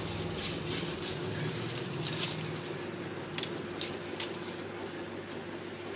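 Taro leaf stalks being cut by hand with a small knife among rustling leaves: a few short crisp snaps and crunches, scattered irregularly over soft rustling.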